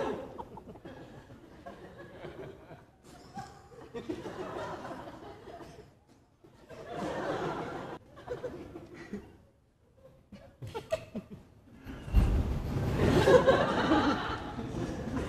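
Audience laughing in several swells, the biggest and longest starting about twelve seconds in.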